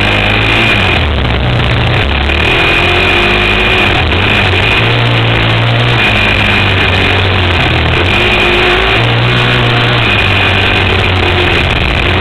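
Suzuki LT-Z400 quad's single-cylinder four-stroke engine revving hard under load in sand, its pitch rising and falling every second or two as the throttle opens and closes, over a steady rush of noise.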